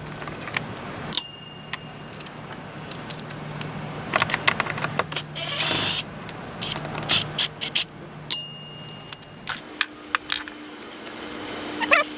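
Scattered metallic clicks and clinks of a ratchet and 5/16-inch socket working the screws of a car's air filter housing, with a short, denser run of ratchet clicking about five seconds in.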